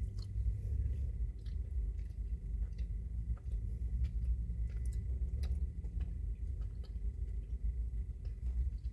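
A person chewing a mouthful of cheese-and-bacon-loaded fries, with soft wet mouth clicks, over a steady low rumble.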